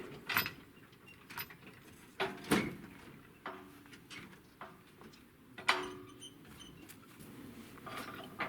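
Scattered knocks and clatters of objects being handled, about eight irregular hits, the loudest around two and a half and five and a half seconds in.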